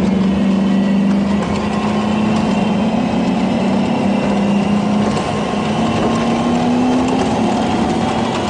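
Open-top ride vehicle running at high speed around a banked track: a steady hum that climbs slightly in pitch near the end, over a rushing noise of wind and wheels.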